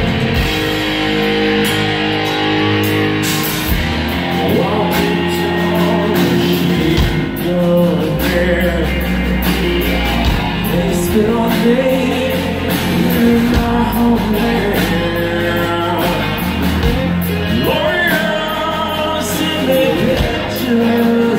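Live rock band playing loud: two electric guitars and a drum kit, with singing over them.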